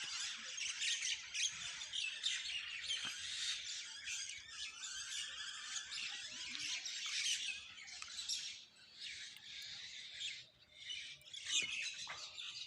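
A chorus of many small birds chirping and calling at once in dense, overlapping runs of short chirps. It thins out for a few seconds past the middle and picks up again near the end.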